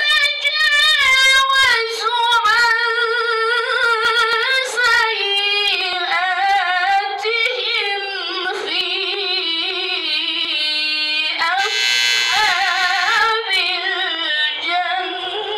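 A woman chanting Qur'an recitation into a microphone, a melodic tilawah with long held notes that waver and ornamented runs between them.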